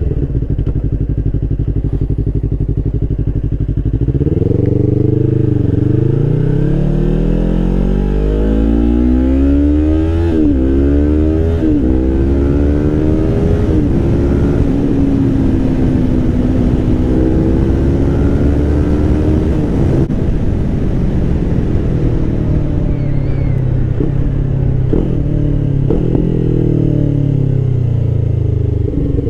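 Yamaha R3 parallel-twin motorcycle engine running through an Akrapovič GP slip-on exhaust while being ridden: it holds steady, then accelerates through several gear changes, the pitch climbing and dropping at each shift, settles at a steady cruise, and slowly falls as the bike slows down.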